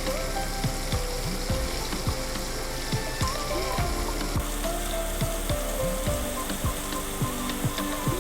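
Cornstarch-and-egg-coated squid pieces deep-frying in hot oil at about 180 degrees: a steady sizzle with frequent irregular sharp crackles and pops. Soft background music plays underneath.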